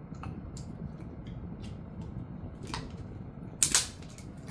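A Jindo-mix dog chewing a rib treat: scattered sharp crunches and clicks of teeth on bone, with two loud crunches close together about three and a half seconds in.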